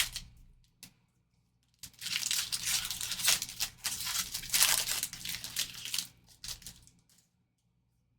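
A 2024 Donruss Football trading-card pack's wrapper being torn open and crinkled by hand, a rustling tear that starts about two seconds in and lasts about five seconds.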